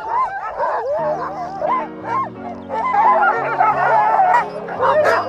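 Many harnessed sled dogs yelping and howling at once in an excited, overlapping clamour, typical of a team impatient to run. Background music with steady low chords comes in about a second in.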